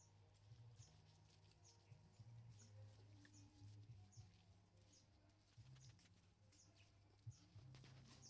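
Near silence: faint short high chirps repeating over and over, over a low steady hum.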